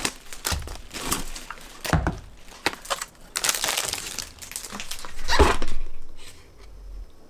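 Paper shopping bag and plastic food packaging rustling and crinkling as groceries are unpacked, with a few knocks of items being handled. The crinkling is loudest a little over five seconds in.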